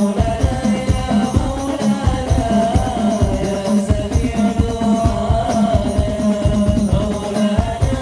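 Islamic devotional sholawat singing with hadrah accompaniment: a sung melody over a dense, steady rhythm of rebana frame drums.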